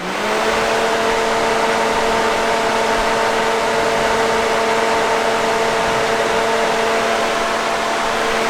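Electric radiator cooling fans switching on with the key turned to accessory and running steadily at full speed: a loud rushing hiss with a steady whine.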